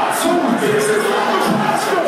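Loud club music, with held synth-like tones and a steady high percussion beat, and a crowd shouting over it.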